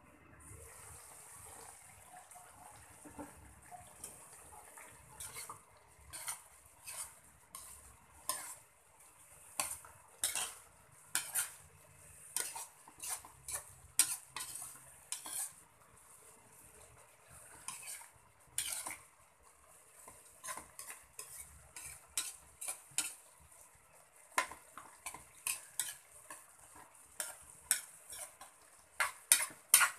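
Metal spatula scraping and clinking against a wok while stirring thick shredded jackfruit and anchovies in coconut milk: irregular sharp scrapes, several a second at times, over a faint steady hiss.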